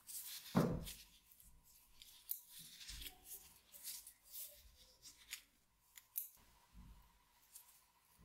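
Metal pruning shears worked open and shut by hand, the blades and pivot clicking and snipping. There is a louder clunk about half a second in.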